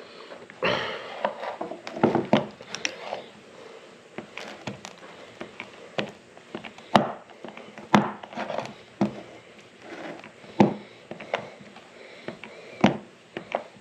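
Hand-lever grease gun being pumped into a CV joint: sharp clicks and knocks at irregular spacing, roughly one a second, as grease is forced into the joint's ball cage.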